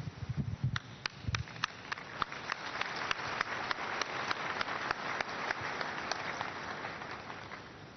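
Congregation applauding, with a strong rhythmic clap of about three beats a second running through the applause, fading out near the end.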